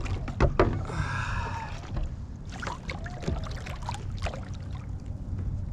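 Knocks and clicks of a fish and gear being handled on a plastic kayak, with a short squeak about a second in.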